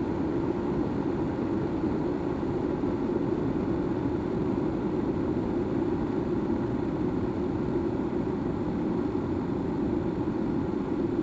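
Kettle of water heating, a steady, even rumble with no whistle.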